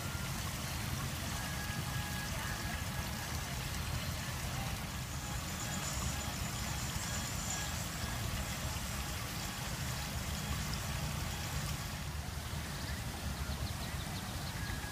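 Steady outdoor background noise: a low rumble under a hiss of trickling stream water.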